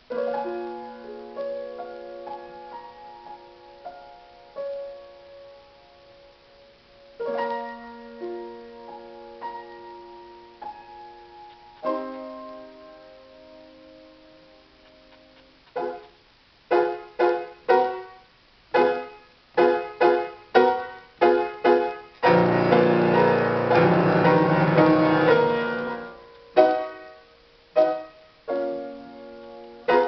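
Solo piano. Slow chords are struck and left to ring out for the first half. From about halfway come short, sharp repeated chords, then a dense rapid flurry of notes about three-quarters of the way through, then more short chords.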